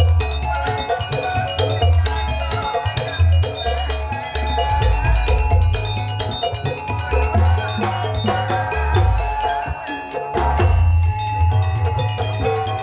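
Instrumental music: bright mallet-percussion notes in repeated melodic patterns over a deep, regular drum beat, with a sharp hit about ten seconds in.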